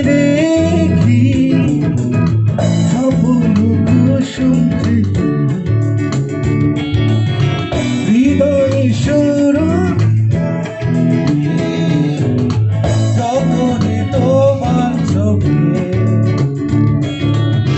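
Live band playing a Bengali rock-pop song: electric guitar, bass guitar, drum kit and keyboard together, with a man singing over them.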